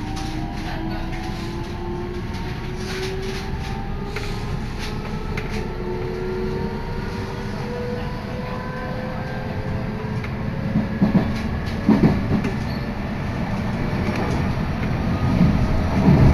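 Electric commuter train accelerating away from a station, heard through an open window: the traction motors' whine rises steadily in pitch over the rumble of wheels on rail. A few louder thumps come in the second half as the train gathers speed.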